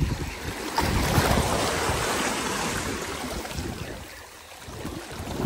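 Small waves washing and splashing over the rocks at the water's edge. The wash swells about a second in and ebbs away after about four seconds, with wind rumbling on the microphone underneath.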